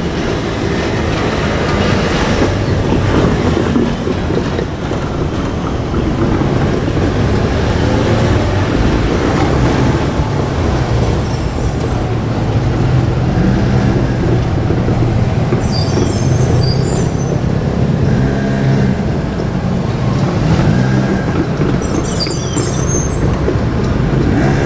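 JR Kyushu 817 series electric train running along the track: steady, loud wheel-on-rail noise with a low motor hum that comes in about halfway through. Brief high-pitched squeals come twice, about two-thirds of the way through and near the end.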